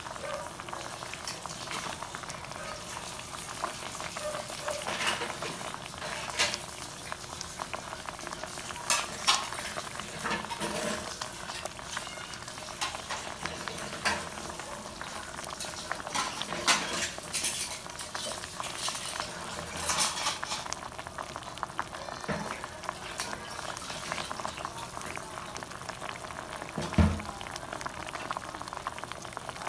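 Mud crabs boiling in Sprite in an open pot: a steady bubbling hiss with frequent small pops and crackles. A single dull knock near the end.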